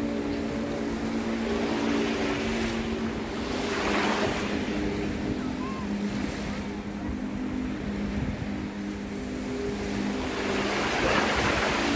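Ocean waves washing up a beach, surging about four seconds in and again near the end. Under them runs a steady low hum of sustained tones.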